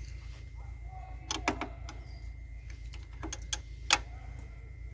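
A few sharp metal knocks in two short groups, the loudest near the end: a tool striking a stuck winch motor to free it. A low steady rumble runs underneath.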